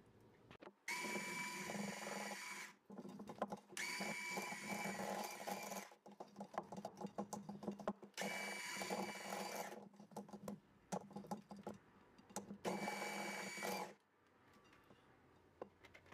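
Electric hand mixer running in four short bursts, its beaters whirring through thick chocolate cake batter, with scattered clicks and taps between the bursts.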